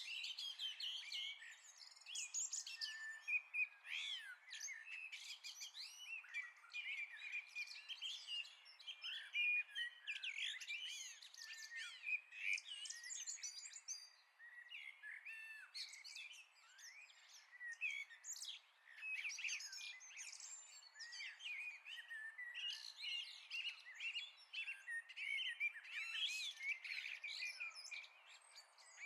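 Dense chorus of many songbirds singing at once, overlapping chirps, trills and warbling notes, with no low sounds beneath them.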